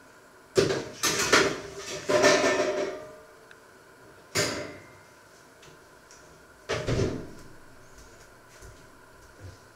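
Metal baking tray clattering and rattling against the oven for about two seconds, then a single sharp clack, and about two seconds later a heavier thump of the oven door being shut.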